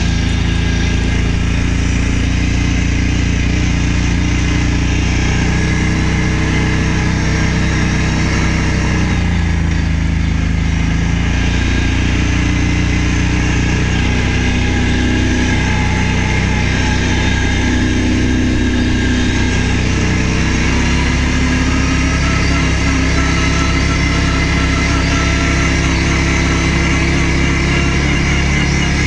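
Quad (ATV) engine running while the machine is ridden across a field, steady and loud, its note shifting in pitch about ten seconds in and again about twenty seconds in as the throttle changes.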